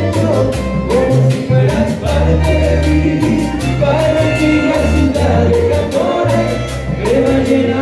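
Live band playing Latin dance music with a steady beat: accordion, electric bass, drums and keyboard.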